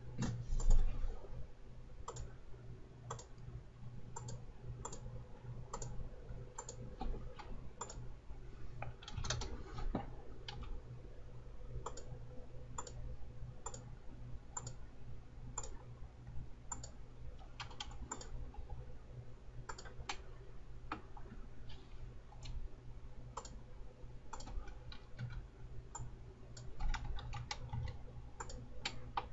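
Computer mouse clicks and a few keyboard keystrokes, single sharp clicks every second or so with short flurries near the middle and near the end, over a low steady hum.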